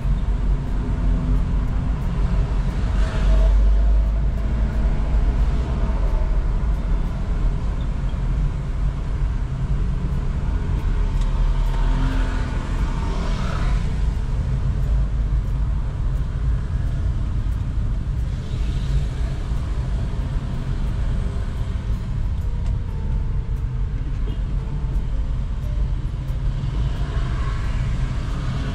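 Steady low engine and road rumble heard from inside a Toyota car's cabin as it drives slowly in light rain. About four times a passing vehicle's noise swells up briefly and fades.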